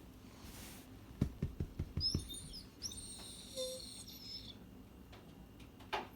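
A small bird chirping and warbling in high, whistle-like notes for about two seconds, after a quick run of soft taps.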